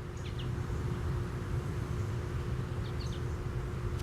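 Steady low outdoor rumble with a faint constant hum, and a few brief high chirps shortly after the start and again about three seconds in.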